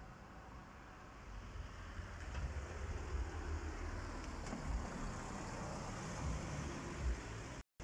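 Outdoor street noise: a steady rush with uneven low rumbling, growing louder about a second and a half in, then cut off abruptly near the end.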